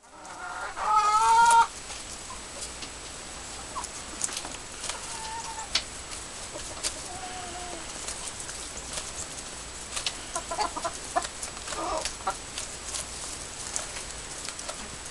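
Flock of hens clucking, with one loud drawn-out squawk about a second in. Softer single calls and bursts of short clucks follow, over scattered sharp ticks.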